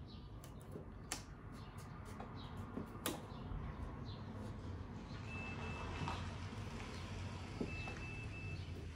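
A vehicle's low engine rumble with two runs of three short, high, even beeps on one pitch from its reversing alarm, over a few sharp clicks and crinkles of painter's tape being handled on the lamp glass.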